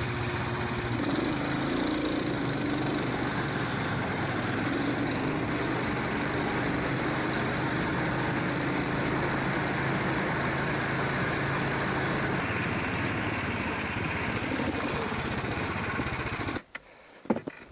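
Snowmobile engine running steadily while travelling over a snowy trail. The drone stops abruptly about a second before the end, leaving a few light knocks.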